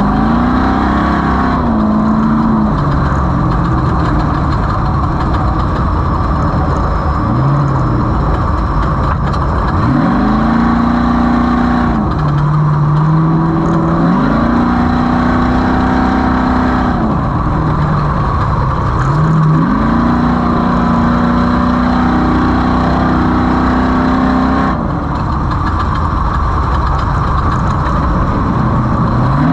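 Off-road race vehicle's engine under heavy throttle, its pitch climbing, holding for several seconds, then falling away, about five times over, above a constant rough rumble.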